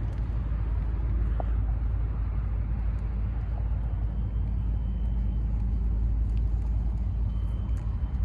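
An engine running steadily: a continuous low rumble with a steady hum.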